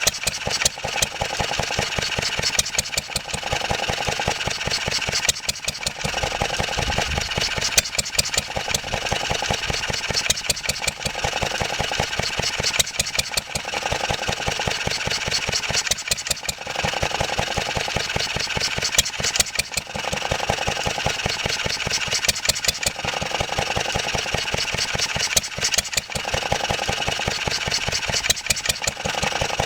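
1954 Wolseley WD8 single-cylinder stationary engine running at idle with a rapid, even beat. Its note swells and dips every few seconds.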